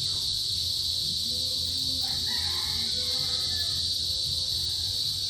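A chorus of male cicadas buzzing in one continuous, steady, high-pitched drone: their calling song to attract females.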